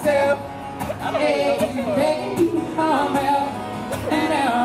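Women singing a song together, with long held notes that waver in pitch.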